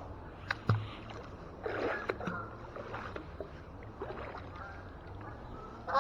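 Water splashing and sloshing with a few sharp knocks as a fishing magnet and its muddy catch are handled at the canal's edge.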